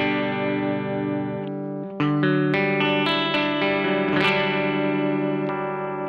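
Greg Bennett Royale RL-1 semi-hollow electric guitar playing chords that ring out. A new chord comes in about two seconds in and another shortly after four seconds.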